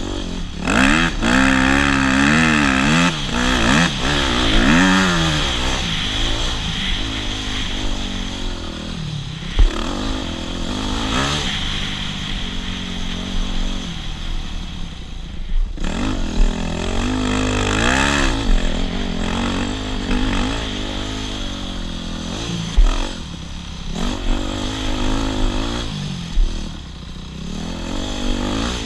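Enduro dirt bike engine revving up and down over and over as it is ridden, with a steady rushing noise and a few sharp knocks.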